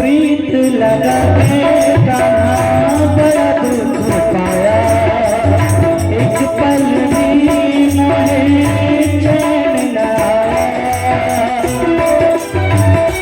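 Instrumental interlude of a folk-devotional song: a sustained melody line that slides between notes, over a drum beat and a steady rhythm of jingling percussion.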